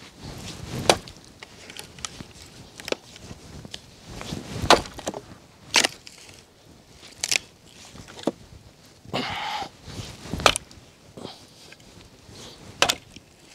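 An axe splitting firewood into kindling: a series of sharp, irregular wooden strikes, a few loud ones spaced one to two seconds apart with softer knocks between.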